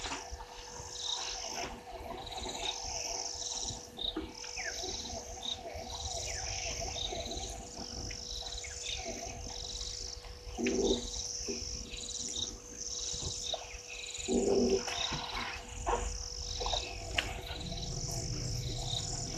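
Evening bush chorus of insects chirping in fast, repeated pulses, with frogs calling lower down. A steady faint tone runs underneath, and twice past the middle a louder, short, low call stands out.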